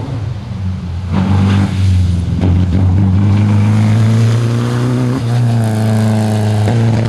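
Historic rally car's engine at full throttle passing close, loud from about a second in, its revs climbing steadily with brief dips for gear changes about five seconds in and near the end.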